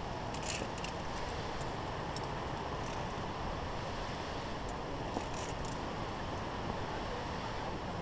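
Steady wind rumble on the microphone, with a few light metallic clinks of via ferrata carabiners against the steel safety cable.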